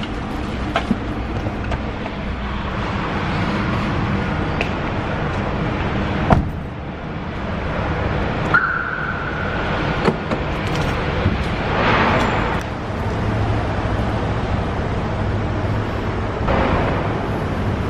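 A car door is shut with a sharp knock about six seconds in, and a couple of seconds later the car's lock or alarm gives one steady beep of about a second and a half as it is locked. Steady low background noise of an underground car park runs under it, with a low hum in the second half.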